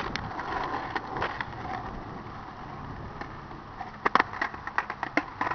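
Skateboard wheels rolling on asphalt, then a quick run of sharp wooden clacks about four seconds in as the board is popped and hits the pavement.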